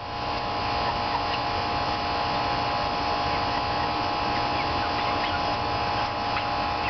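Steady mechanical hum made of several held tones over a low hiss, with a few faint short chirps on top.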